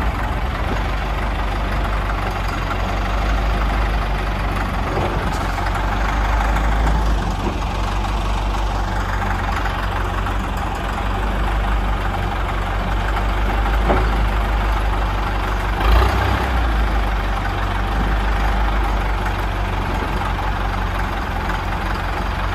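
Wheel loader's diesel engine running steadily, with a few short knocks, the loudest about sixteen seconds in.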